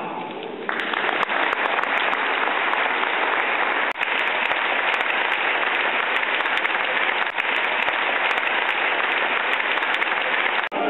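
A large crowd applauding, a dense steady clatter of many hands clapping. It starts just under a second in, after the last of a speech, dips briefly twice and breaks off near the end.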